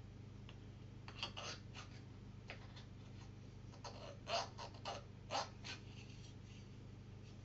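Quiet room hum with a scattering of small clicks and creaks, the loudest about four and five and a half seconds in.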